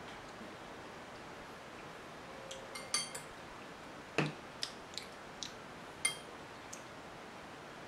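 Cutlery clicking and clinking against ceramic bowls and dishes while someone eats. There are a handful of light, scattered clicks, and the clinks about three seconds in and about six seconds in ring briefly.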